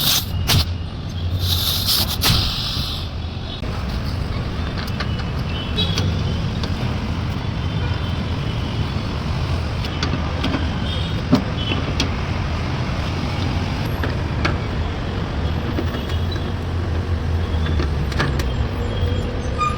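Pressurised gas hissing out of an air-conditioner pipe being flushed: a sharp burst about a second and a half in that stops after about a second and a half, over a steady low rumble with scattered small clicks.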